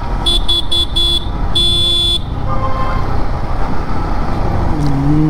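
Vehicle horn beeping in four quick short taps, then one longer beep, over the steady rumble of riding in traffic.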